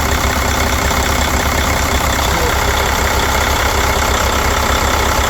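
Mercedes OM460LA inline-six diesel engine running at a steady idle, an even pulsing rumble.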